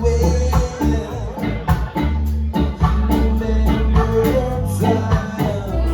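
Music with a steady beat and a heavy bass line.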